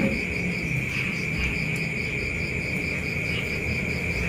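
Crickets chirping in a steady high trill with a faint beat about four times a second, over a low hum.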